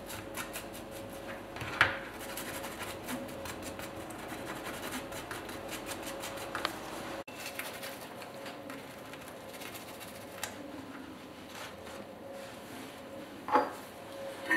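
A garlic clove rubbed over a crisp fried rye-bread crouton, a dry scraping on the toasted crust, over a steady hum. A sharp knock comes about two seconds in and another near the end.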